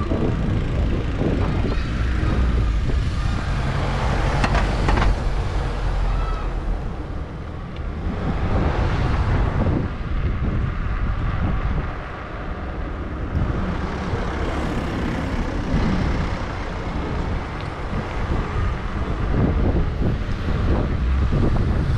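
City street traffic: cars and heavier vehicles passing, swelling and fading every few seconds over a steady low rumble, heard from a moving bicycle.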